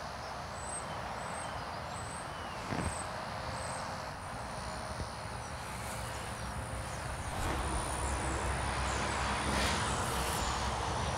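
Outdoor background: a steady low rumble, with faint high bird chirps repeating about every two-thirds of a second in the first few seconds and a brief thump about three seconds in.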